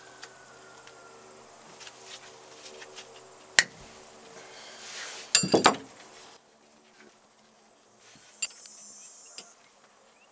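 Metal hand tools clicking and clinking against the Sherp's brake caliper hardware as it is being removed: a sharp click about a third of the way in, then a quick cluster of ringing metal clinks near the middle. A faint steady hum sits underneath for the first half.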